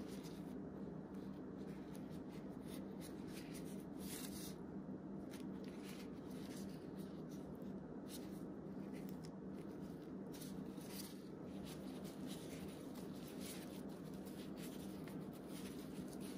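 Faint, irregular rustling and crinkling of disposable plastic food-prep gloves as hands handle raw shrimp, over a steady low hum.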